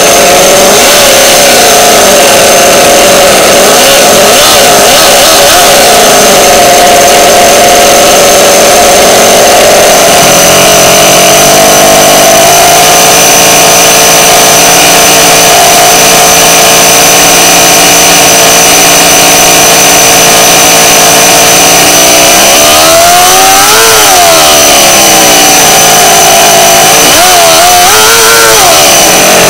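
Toyan FS-L400 inline four-cylinder four-stroke model engine running steadily at idle. Its pitch is revved up and back down twice near the end, as the clutch engages and spins the drivetrain.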